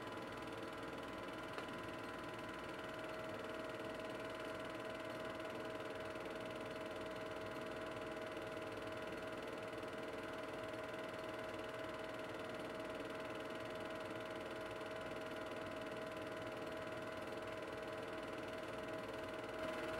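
Steady hum and hiss with several fixed tones, one of them growing stronger about three seconds in; no distinct events.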